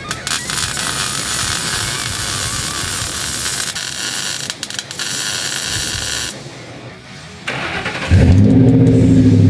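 Arc welding on a steel exhaust pipe: a steady crackling hiss with a few brief breaks, stopping about six seconds in. About eight seconds in, a 2005 Ford F-150 engine starts and runs through a new Flowmaster American Thunder cat-back dual exhaust, with a loud low exhaust note.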